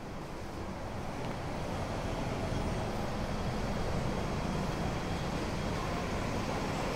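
Steady road traffic noise, a low rumbling hum that slowly grows louder.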